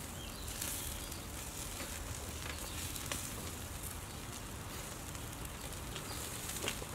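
Chicken wings sizzling in a wire grill basket over a charcoal grill, with steady crackling and a few sharp pops, the loudest near the end.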